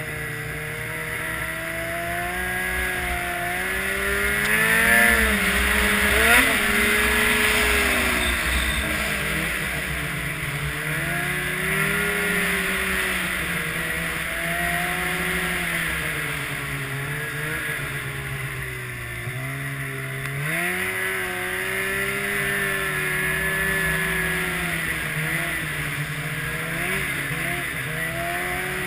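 Snowmobile engine running under way, its pitch rising and falling with the throttle. It revs up hardest about six seconds in, drops back near twenty seconds, then picks up again.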